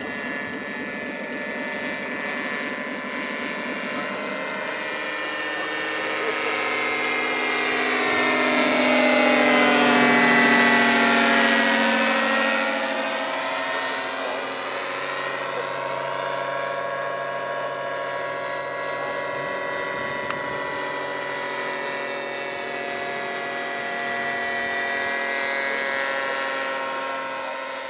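Motor and propeller of a radio-controlled Airco DH.2 biplane model in flight: a steady droning hum that grows louder and peaks about ten seconds in as the model passes close, its pitch dropping as it goes by, then runs on steadily and fainter.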